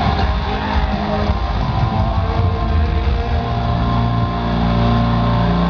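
Metal band playing live through a concert PA, recorded loud from within the crowd, with distorted electric guitars and pounding drums. About three seconds in the drumming stops and the guitars hold a sustained, ringing chord.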